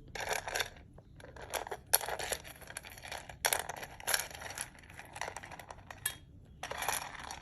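Irregular light scraping and clinking, a quick run of short scratchy sounds with pauses between them.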